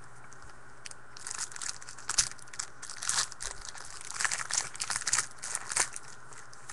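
Crinkling wrapper of a 2013 Panini Rookies & Stars football card pack being torn open and handled, a run of irregular crackles starting about a second in and stopping near the end.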